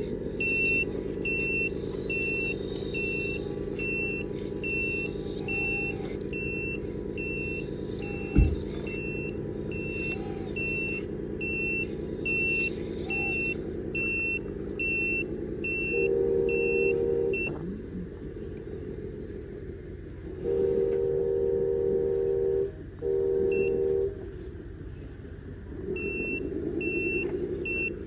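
An RC truck's electronic sound module plays a simulated diesel engine running, with a reversing beeper sounding a little faster than once a second. Three loud horn blasts come in the second half, and there is a single sharp click about eight seconds in.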